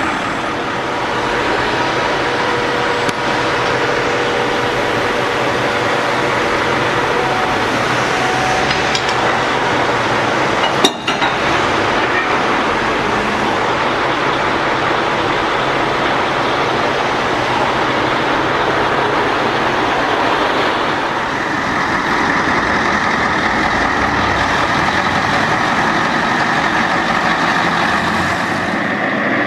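Heavy diesel engines running steadily: a Mercedes-Benz Actros V8 heavy-haulage truck and a mobile crane. There is a single sharp click about eleven seconds in, and the sound shifts in character about twenty-one seconds in.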